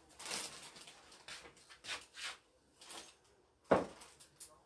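Clear cellophane gift wrap rustling in short bursts as a wrapped gift bundle is handled, with one sharp knock late on.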